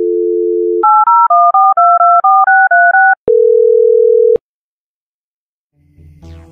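Telephone dial tone, then about eleven touch-tone (DTMF) digits dialed in quick succession, each a short two-note beep. A steady tone follows for about a second, starting and cutting off with a click, and music starts faintly near the end.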